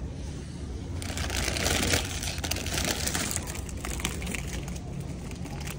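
Crinkling of plastic snack bags being handled: a dense crackly rustle lasting a couple of seconds from about a second in, over a steady low hum.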